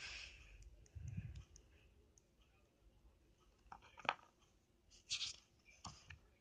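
Faint, scattered taps and clicks with a short scratchy rustle a little after five seconds in, from a hand and pencil on drawing paper and the camera being handled close up.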